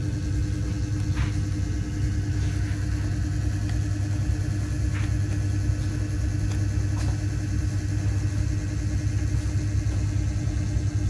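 Steady low drone of the KM Leuser passenger ship's engines and machinery, heard inside a passenger deck, with a few faint clicks.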